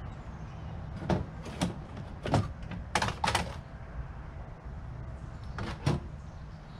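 Irregular metal knocks and clanks, about seven of them, from a microwave oven's transformer and sheet-metal housing being handled as the transformer is pulled out.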